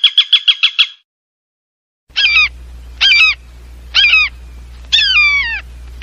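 Animal calls: a fast trill of high chirps, about ten a second, ending about a second in. Then four short squawks, each falling in pitch, about a second apart over a low steady hum.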